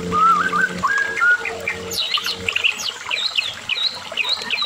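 White-rumped shama (murai batu, Medan type) singing a fast, varied run of short whistled notes and chirps, jumping between low and high phrases. A low steady hum sounds underneath and stops about halfway.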